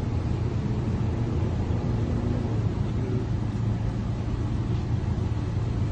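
Steady low rumble of an idling vehicle engine nearby, with no distinct events.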